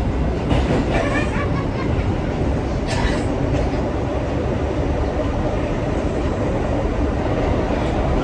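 New York City subway car running on the track, heard from inside the car: a steady low rumble of wheels on rail, with a brief high hiss about three seconds in.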